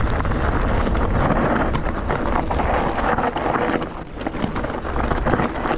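Wind buffeting the microphone of a moving e-bike, over a steady low rumble with many small knocks and rattles, briefly easing about four seconds in.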